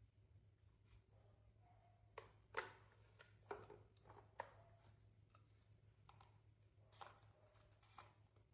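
A near-silent room with a low steady hum and a handful of short, faint clicks and taps, the loudest a little over two and a half seconds in.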